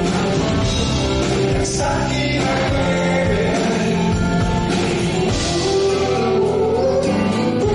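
Live pop-rock band playing a song, with voices singing together over the band.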